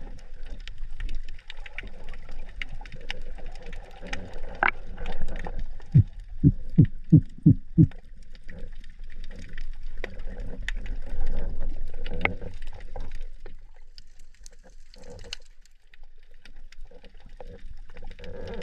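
Underwater sound picked up through a camera housing during breath-hold spearfishing: scattered clicks and crackle over a low rumble. About six seconds in comes a quick run of six short tones, each falling in pitch.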